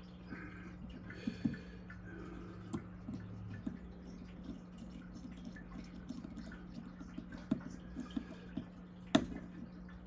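Scattered small clicks and ticks of a folding knife's parts and a small driver being handled during assembly, with one sharper click about nine seconds in, over a steady low hum.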